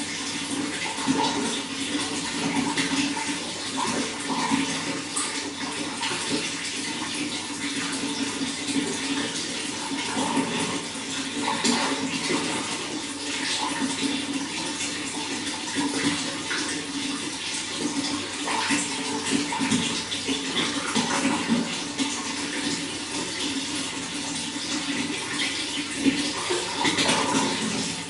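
Running water flowing steadily, with continuous splashing and gurgling.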